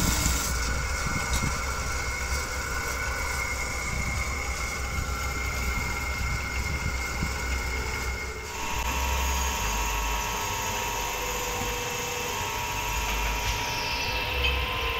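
Motor-driven wood lathe running steadily, a low hum under a steady whine. The whine changes pitch suddenly about eight seconds in, then carries on steady.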